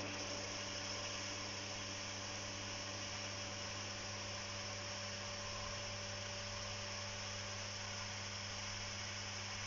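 Toom garden pump (automatic house-water pump) running steadily under load: an even electric-motor hum with a steady hiss over it. The owner takes the pump's odd buzzing noise for a sign that the sprinkler lets too little water through.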